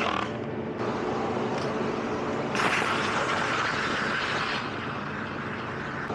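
Stihl string trimmer's small engine running steadily, growing louder and brighter for about two seconds in the middle.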